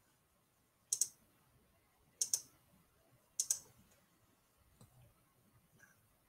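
Computer mouse button clicks: three crisp clicks about a second apart, each a quick press-and-release, then a couple of fainter clicks near the end.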